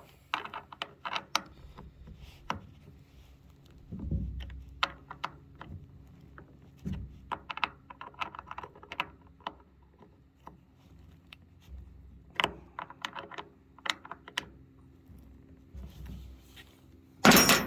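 Small clicks, taps and scrapes of hands and tools working on a chainsaw after its chain tension has been set, with a couple of dull thumps and one loud knock near the end.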